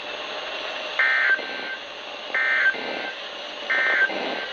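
Emergency Alert System SAME end-of-message code on a weather radio broadcast: three short, shrill digital data bursts about 1.3 seconds apart over steady radio hiss, marking the end of the warning message.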